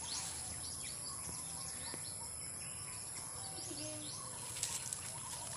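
Small birds chirping in quick, high, falling notes, with a cluster of sharp clicks about four and a half seconds in.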